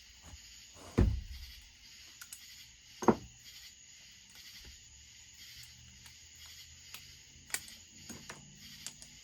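A few separate knocks and small clicks of tools being handled on a workbench: a dull thump about a second in, another around three seconds, and a sharp click past halfway, with no impact driver running.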